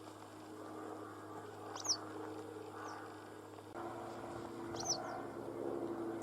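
Small songbird chirping: two sharp, high chirps about three seconds apart, with a fainter one between them, over a steady low hum.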